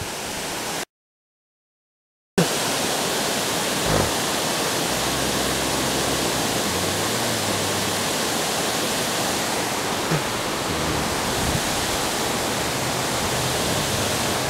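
Water pouring over an old mill dam's spillway: a steady rushing hiss, broken by about a second and a half of dead silence near the start.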